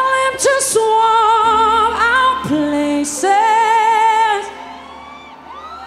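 A woman singing long held notes with vibrato over a quiet, steady backing, live on stage; the singing stops about four and a half seconds in.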